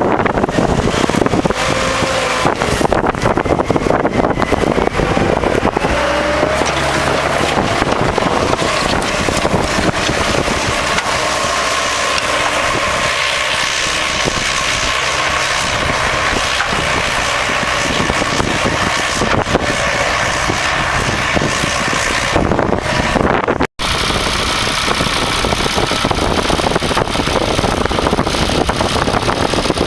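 Tractor engine running under load, mixed with wind noise on the microphone. The sound cuts out for an instant about three-quarters of the way through.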